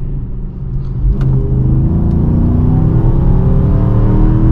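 Dodge Charger R/T's 5.7-litre Hemi V8 accelerating, heard from inside the cabin: after a slightly quieter first second the engine note climbs slowly and steadily in pitch. The exhaust sounds quiet, with its old exhaust leak gone.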